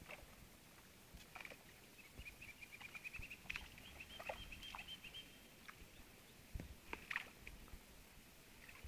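Birds calling from the waterside: a quick trill of high notes lasting about three seconds, with a few short, sharp calls around it.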